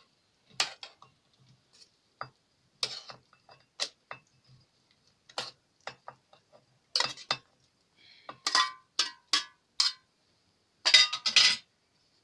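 Metal utensil clinking and knocking against dishes in irregular strikes, a few ringing briefly, as steamed dried figs are handled for mashing; the loudest cluster of clinks comes near the end.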